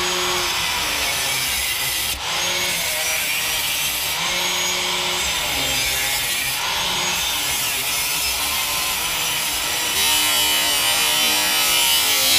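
Corded angle grinder cutting through the steel exhaust pipe, a continuous grinding with the motor's pitch wavering as the wheel is pressed into the cut. It gets louder about ten seconds in.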